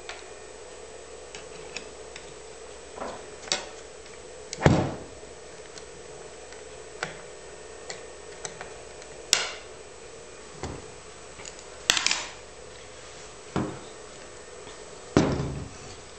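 Small screwdriver driving screws into a camcorder's fiber-adapter mounting plate, with scattered light clicks and knocks of metal and plastic. A few heavier thumps come as the camcorder is handled on the table, the loudest about four and a half seconds in and another near the end, over a steady faint hum.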